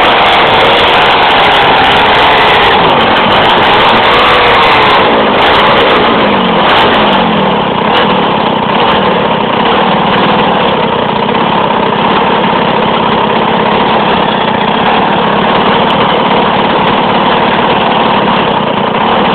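Two-stroke chainsaw engine powering a homemade snowblower, running at changing speed with its pitch rising and falling, then dropping about seven seconds in to a steady idle.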